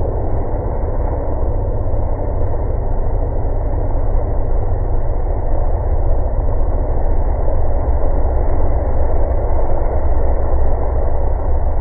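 Tractor engine running steadily as a continuous low drone, with no change in pitch or level.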